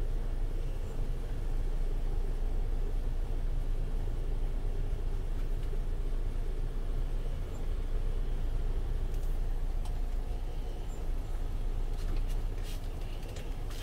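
Steady low rumble inside a semi-truck cab as the truck's diesel engine runs while crawling in slow traffic, with a few faint clicks near the end.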